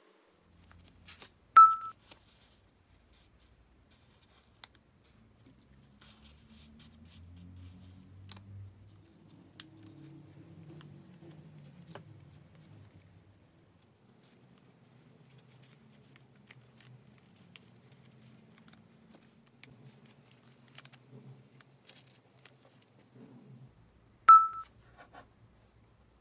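Faint sounds of paper being cut and handled with a snap-off utility knife on a cutting mat: light scattered ticks and scrapes. Two sharp, much louder clicks ring briefly, one about a second and a half in and one near the end.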